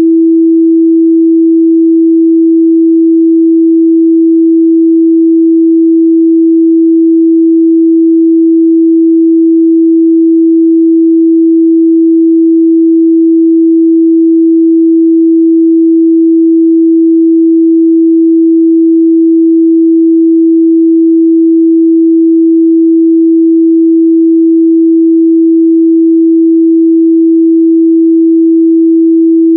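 A steady, loud 328 Hz pure sine-wave test tone, one unchanging pitch with no other sound.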